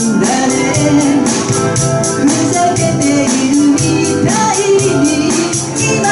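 Live pop band playing with a singer, drums, bass and keyboard, a steady quick tambourine or hi-hat beat running through.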